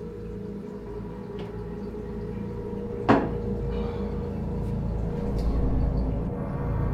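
A single sharp knock about three seconds in, over a low, steady droning ambient score.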